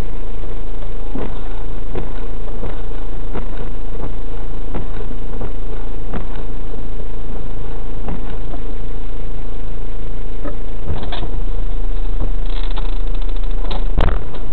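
Car engine idling, heard from inside the cabin through a dashcam's microphone: a steady low hum with scattered light clicks and a sharper knock near the end.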